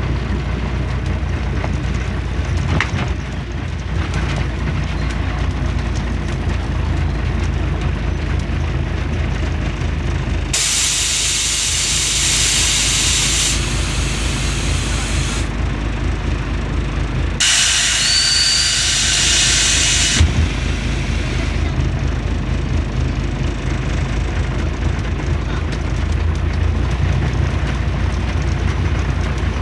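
Scania CN113CLB city bus heard from inside the cabin: the diesel engine rumbles low and steady as the bus runs, and the air system gives two loud hisses of compressed air, each about three seconds long, around ten and seventeen seconds in.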